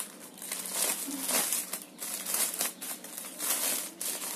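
Clear plastic packaging crinkling and rustling in irregular bursts as it is handled, with the mop head still inside the bag.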